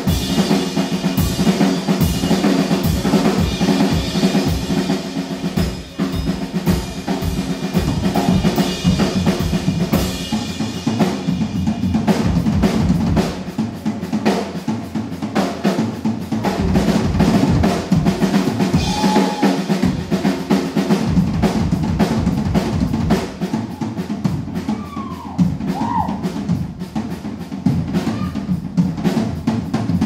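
Live drum kit solo: rapid snare strokes and rolls over bass drum kicks, with cymbals ringing on top.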